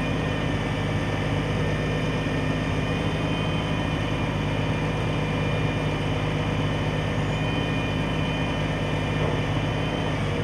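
A large engine idling steadily, an even low hum that does not change.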